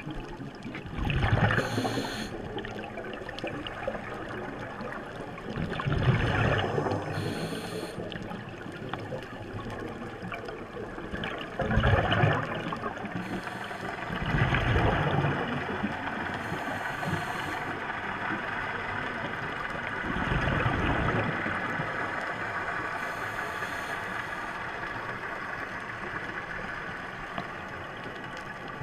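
Scuba diver's regulator breathing heard underwater: a bubbly rush of exhaled air about every five or six seconds, five times in all, with a steady hiss between breaths.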